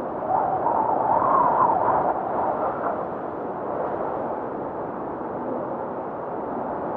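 Snowstorm ambience: a steady, wind-like rushing. It swells with a wavering howl from about a quarter second in to about three seconds, then settles back to an even rush.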